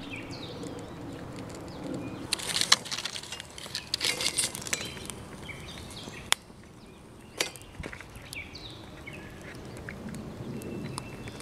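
Small wood fire in a metal camp stove crackling, with scattered sharp pops and clicks, the loudest clustered in the first half, while birds call now and then.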